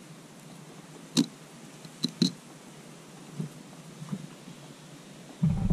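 Fillet knife blade clicking against a channel catfish's rib bones as it slices along the rib cage and backbone: a few sharp ticks, the loudest about one and two seconds in. A low rumble sets in near the end.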